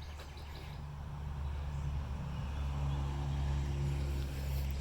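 Low, steady motor hum that grows louder, taking on a deeper pitched drone about halfway through.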